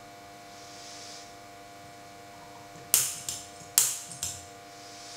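Push-button piezo igniter on a mini camping gas stove clicking four times, sharp snaps about half a second apart, during an attempt to light the burner.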